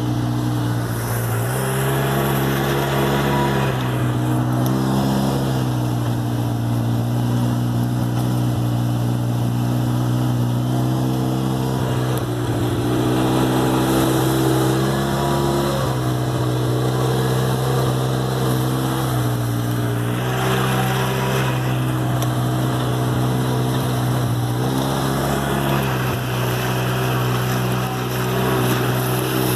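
Side-by-side UTV engine running while under way, heard from the cab: a steady drone that rises and dips in pitch a few times as the throttle changes.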